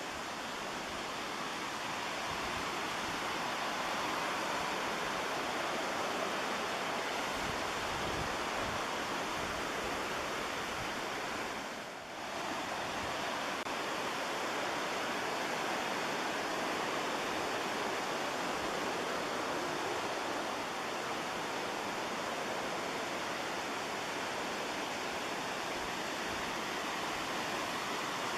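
Steady rush of white water from the McKenzie River and its waterfalls, an even roar that dips briefly about twelve seconds in.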